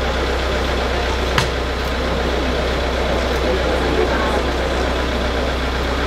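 Heavy engine idling steadily, with one sharp strike of a pickaxe into the street paving about one and a half seconds in.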